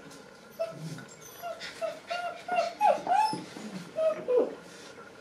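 A puppy whining: a run of short, high whimpers and yips, several falling in pitch, from about half a second in until near the end.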